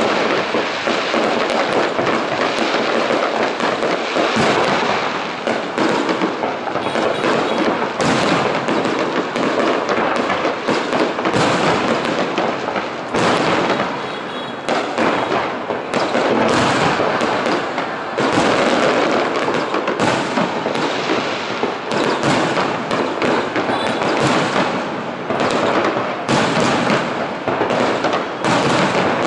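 Fireworks display: aerial shells bursting and crackling in a dense barrage of bangs and pops, almost without pause, easing briefly about halfway through.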